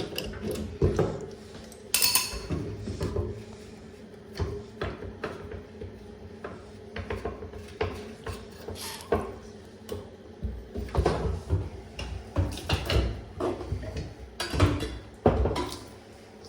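Irregular metallic clinks, knocks and scrapes of a spanner working a basin tap connector loose, coming thicker and louder in the second half.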